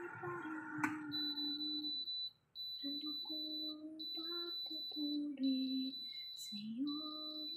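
Halogen convection oven's end-of-cycle timer beeping in rapid high trains, repeated with short pauses, signalling that the cooking time has run out. A low tune plays underneath.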